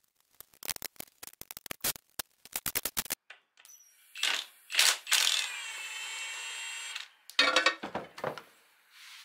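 Ratchet wrench clicking quickly for about three seconds while backing out the GM 10-bolt differential cover bolts. It is followed by louder metal clanks, one ringing for a couple of seconds, and two more clanks near the end.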